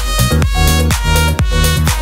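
Background electronic dance music with a steady beat, about two beats a second.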